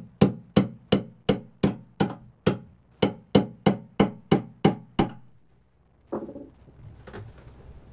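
A hammer striking the front panel of an MDF subwoofer enclosure to knock it loose: about fifteen sharp blows, roughly three a second, stopping about five seconds in.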